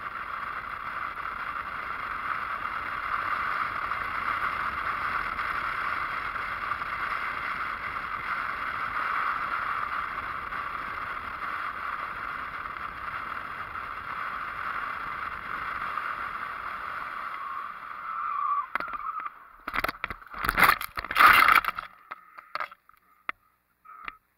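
Motorcycle at road speed, heard on the bike-mounted camera as a steady rush of wind and road noise. About eighteen seconds in this gives way to a few seconds of loud, irregular scraping and knocks as the locked rear wheel sends the bike sliding onto the dirt shoulder and down.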